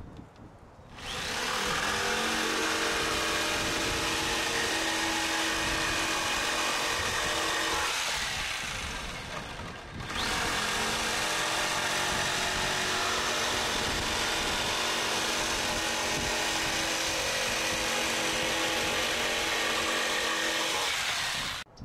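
Corded Makita jigsaw cutting through a wooden board. It starts about a second in, winds down around eight seconds in, starts again at about ten seconds and runs steadily until it stops suddenly near the end.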